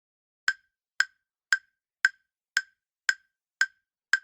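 Countdown-timer tick sound effect: short, sharp wood-block-like clicks, about two a second, evenly spaced, counting down the time to answer a quiz question.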